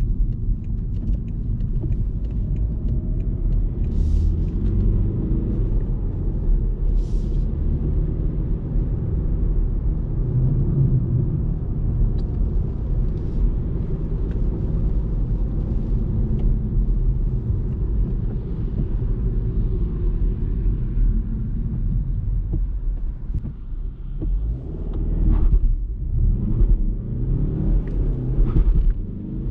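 BMW F40 118d's four-cylinder diesel engine with tyre and wind noise from inside the car while driving at speed: a steady low rumble. Near the end the sound dips and swells several times.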